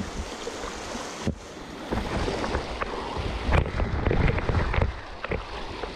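Wind buffeting the microphone over moving river water, with scattered sharp knocks.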